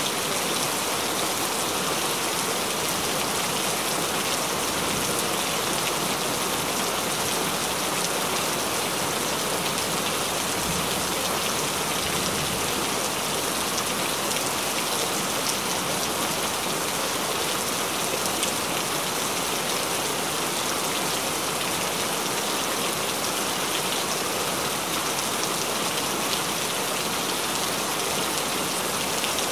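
Steady rain falling: an even, dense hiss of many drops that does not let up.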